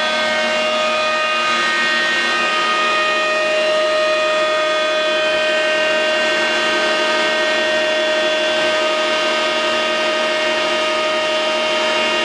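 Electromagnetic pulse motor running at a constant speed of about 2,300 rpm, giving a steady whine with many pitches that does not change.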